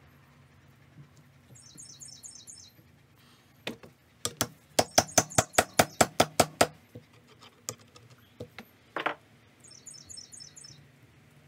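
A quick run of about a dozen sharp taps, roughly five a second, then a few single knocks. A small tap hammer is driving a greased bushing home into an aftermarket upper control arm. A bird chirps briefly twice, early and near the end.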